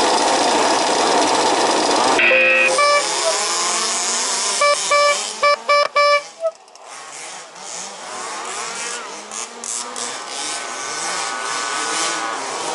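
A field of 1/5-scale two-stroke RC buggy engines running, broken by a longer electronic tone and then a run of short start beeps from the race timing system. Right after the beeps the engine noise drops away sharply, then builds back with rising revs as the buggies race off.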